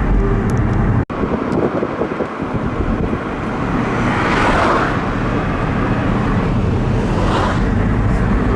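Steady road and engine rumble of a car being driven, with rushing swells about halfway through and again near the end, as of other vehicles passing. The sound drops out for an instant about a second in.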